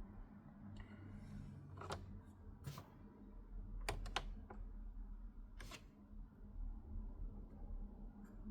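Sony PS-212 turntable being handled: about five sharp mechanical clicks and knocks, spaced irregularly, over a low steady hum.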